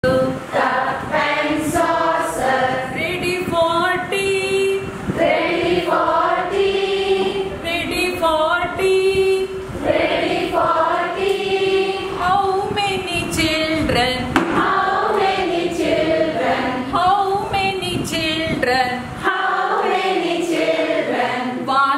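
A group of women singing an action song together.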